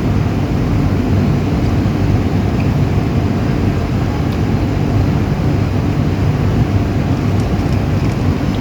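A steady, loud low rumble with a faint hum, without a break.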